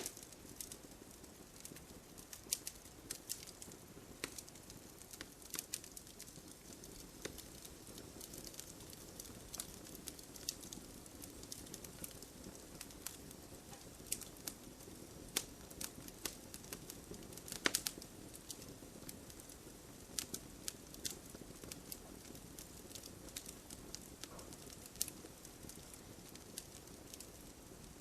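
Wood campfire burning: logs crackling and popping in irregular, sharp snaps over a soft, steady rush of flame, with one louder pop about two-thirds of the way through.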